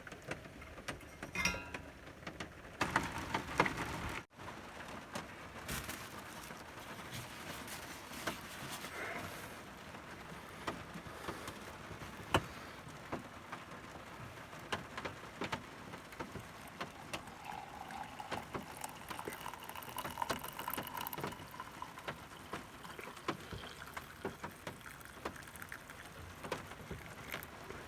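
Steady rain falling, with many small drop hits ticking irregularly over a soft hiss.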